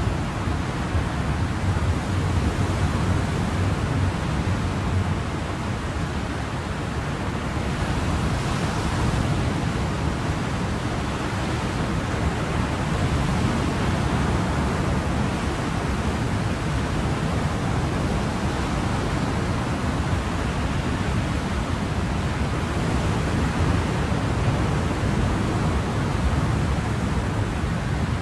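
Ocean surf: a continuous wash of waves, with only slight swells and no distinct breaks.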